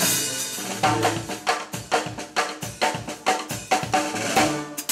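Music with a drum kit keeping a steady beat, about two strokes a second, over a bass line and other pitched notes.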